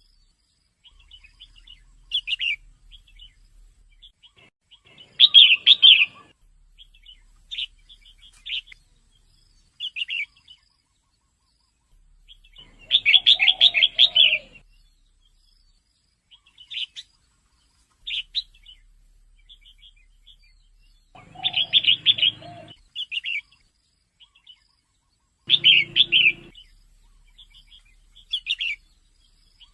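Red-whiskered bulbul calls, which the uploader gives as a female's: about a second of rapid chattering notes every few seconds, four of them loud, with scattered single chirps in between.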